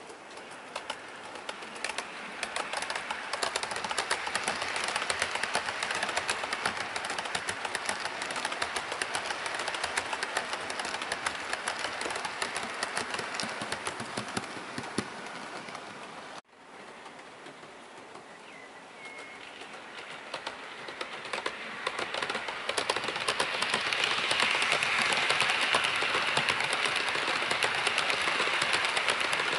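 Bachmann OO gauge Class 90 model locomotive and its coaches running along model railway track: a steady whirring rush of motor and wheels with dense rapid clicking, swelling as the train nears. The sound cuts off abruptly about sixteen seconds in, then builds again to its loudest near the end.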